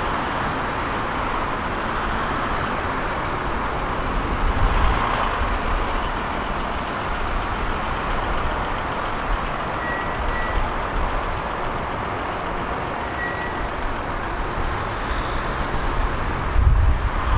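Steady road traffic at a busy city intersection: cars passing, with a louder passing vehicle about five seconds in. Wind buffets the microphone near the end.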